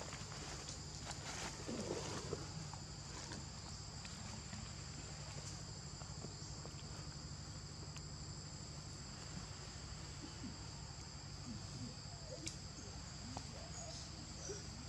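Insects chirring steadily outdoors at two constant high pitches. In the first couple of seconds they are joined by light rustling and crackling of dry leaf litter.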